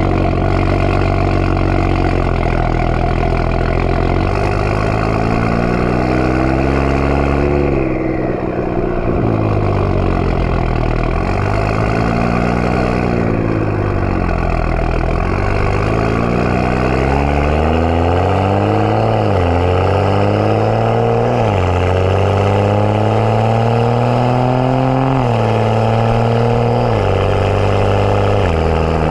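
BMW 335i's N55 turbocharged inline-six running through a catless downpipe and M Performance exhaust while driving: the exhaust note climbs and falls in pitch several times as it accelerates and lifts off, with quick pitch drops at upshifts about two-thirds of the way in.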